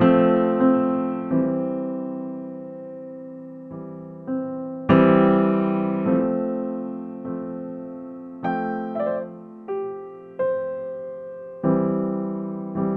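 Background piano music: slow single notes and chords struck about every second and left to ring and fade.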